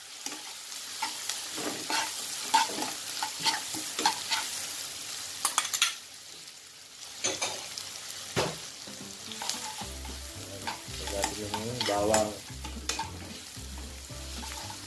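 Chopped onion and minced garlic sizzling in hot oil in a nonstick wok, stirred and scraped with a spoon. The scraping and tapping come thick and fast for the first six seconds, pause briefly while the pan just sizzles, then start again.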